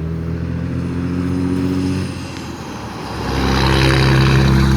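Engines of passing road vehicles. One steady engine note fades about two seconds in, then a louder engine drone builds about three seconds in and holds.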